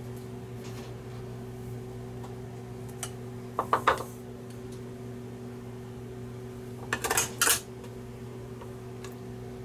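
Bowls and a utensil clinking and knocking as they are moved and set down on a wooden cutting board, in two short clusters about four and seven seconds in, over a steady low hum.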